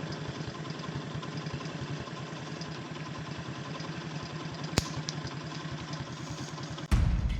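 A small engine idling steadily with a fast, even pulse, with one sharp click about five seconds in.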